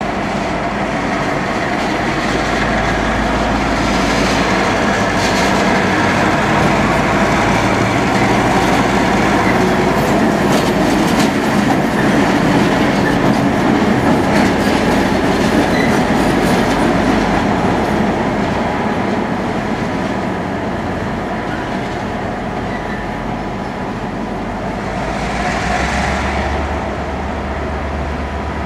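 General Motors-built class 664 diesel-electric locomotive passing close by: a steady low engine drone with wheels clattering over the rails, swelling as it comes past in the middle and easing off as it moves away.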